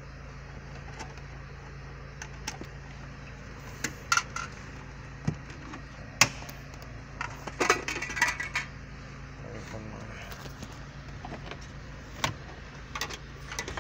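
Scattered clicks, taps and short clattery clinks of hand tools against a Land Rover's plastic dashboard trim and clips as the dash is taken apart, over a steady low hum.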